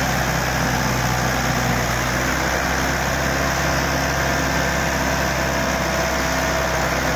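Mahindra 575 DI tractor's four-cylinder diesel engine running steadily under heavy load, straining to pull a loaded sugarcane trolley out of wet, soft ground.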